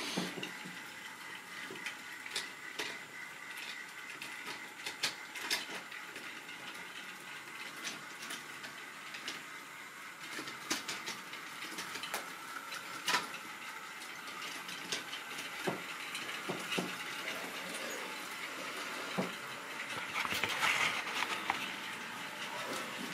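Many small clicks and clatters of plastic model railway wagons being handled and set on the track, over a steady whirring rush of a model train running on the layout, which swells near the end.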